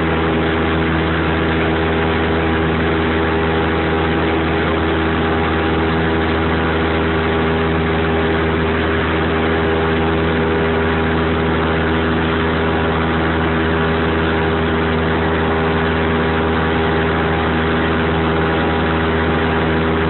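Small Cessna airplane's piston engine and propeller droning steadily, heard from inside the cabin, with no change in pitch or level.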